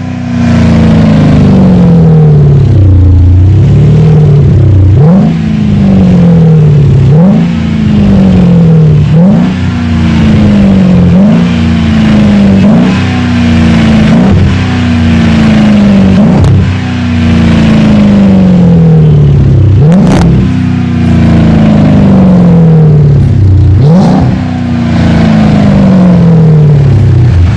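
Jeep Grand Cherokee engine free-revving through a straight-through sport exhaust with an X-pipe, stainless 304 tubing and straight-flow mufflers. The throttle is blipped again and again, roughly every one to two seconds. Each rev snaps up quickly and then falls back slowly toward idle. There are a few longer pauses in the second half.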